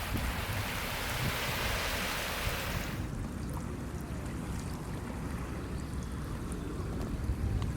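Seaside ambience: wind rumbling on the microphone over the wash of sea water. The bright hiss drops away abruptly about three seconds in, leaving mostly the low wind rumble.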